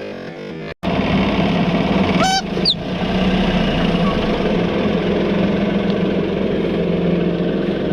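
A car engine running steadily, with a brief rising squeal about two seconds in. Music plays for the first moment, then cuts out.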